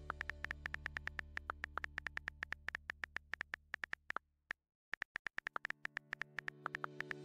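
Rapid computer-keyboard key clicks, several a second and unevenly spaced, over a sustained synthesizer music pad. The pad fades away and everything stops briefly a little past halfway, then the clicks resume and the pad fades back in.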